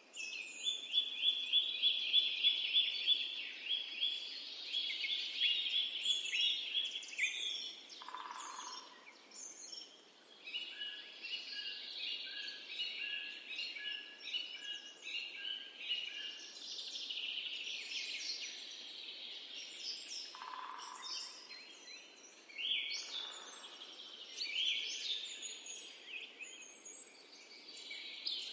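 Several songbirds singing at once, overlapping chirps, whistles and trills. A loud, fast, rapidly repeated trill is the most prominent song for the first seven seconds or so.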